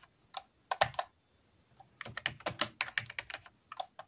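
Keystrokes on a computer keyboard: a few quick key presses about a second in, then a longer run of typing, as a command is entered in a terminal.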